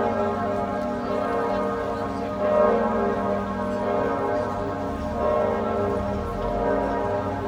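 Several bells ringing together in a peal. Their strokes overlap into a sustained ringing hum that swells again every two to three seconds.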